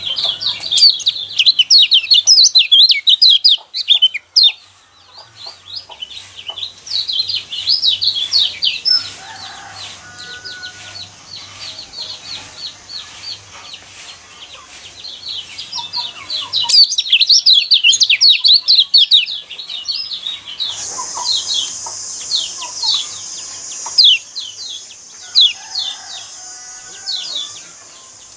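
White-eye singing a rapid, chattering contest-style song (gronsengan): dense runs of fast, high chirps, loudest at the start and again about two-thirds of the way through, with sparser chirps between. A faint low hum runs under it, and a steady hiss comes in near the end.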